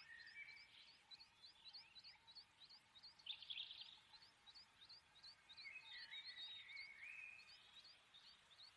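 Faint bird chirping: a run of short, evenly repeated high chirps, about four a second, with brief warbling phrases mixed in.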